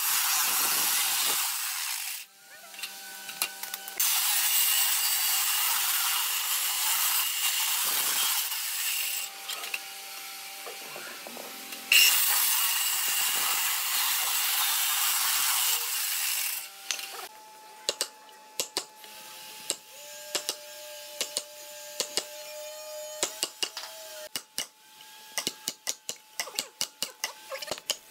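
Makita circular saw cutting into a hardwood post in three loud passes, with quieter gaps between. After the saw stops, a long run of sharp knocks follows, coming faster toward the end, as the wood between the saw cuts is split out with a chisel.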